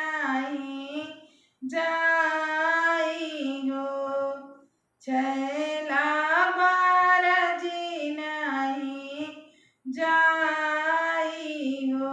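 A woman singing a Bagheli folk wedding song solo and unaccompanied, in phrases of about three seconds with short breaks between them.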